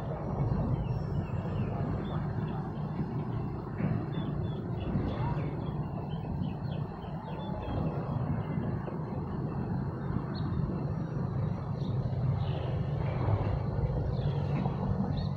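Low, steady rumble of wind on the microphone, with small birds chirping throughout. A faint, thin high whine, the electric motor of a radio-controlled Su-30 model jet flying far overhead, can be heard at the start and again near the end.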